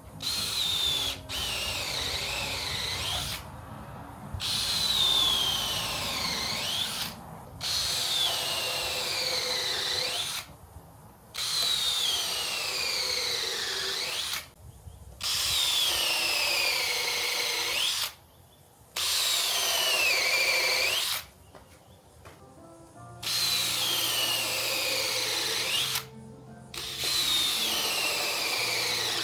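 Power drill driving screws into hardwood boards in about eight runs of two to three seconds, each a whine that falls in pitch, with short pauses between. Faint music plays underneath.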